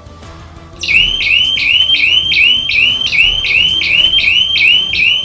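Buckler Security System electronic alarm hooter going off, triggered by the almirah's door sensor as the door is opened: a loud, rapidly repeating whooping siren tone, about three cycles a second, starting about a second in.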